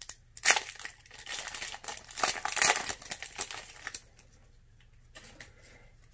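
Pokémon booster pack's foil wrapper crinkling as it is torn open, in dense rustling bursts for about four seconds. After that it goes much quieter, with only a few faint ticks.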